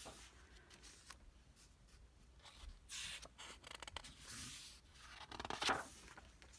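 Pages of a thick art book being turned by hand: a few papery swishes and rubs with small taps as the pages settle, the loudest swish near the end.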